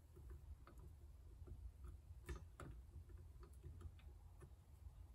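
Near silence with faint, small metallic clicks at about two to three a second, two a little louder just past the middle.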